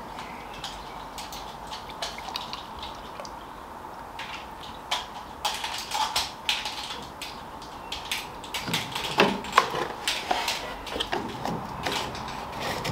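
Scattered small plastic clicks and taps from a brake fluid bottle and the master cylinder reservoir being handled while the reservoir is topped up and its cap put back on. They grow busier and louder after about five seconds, over a faint steady hum.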